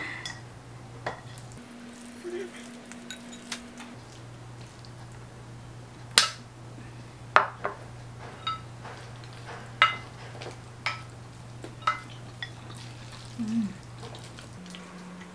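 A wooden fork and spoon clinking and scraping against a plate while pasta is twirled: a scatter of sharp separate clicks, most in the second half.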